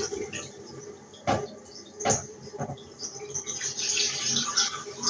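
Water running into a bath, splashing and pattering unevenly, with a few louder splashes a little over a second and about two seconds in.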